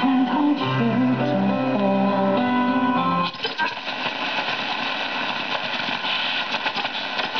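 Music from a shortwave station, with plucked-string notes, playing through the loudspeaker of a 1952 Kapsch Superior tube radio. About three seconds in, the dial is turned off the station and the sound changes to shortwave static, a crackling hiss.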